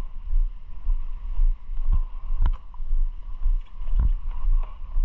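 Wind buffeting the microphone of a moving Vespa scooter, a heavy uneven rumble, with the scooter's engine and road noise underneath. A few short knocks cut through, the sharpest about two and a half seconds in.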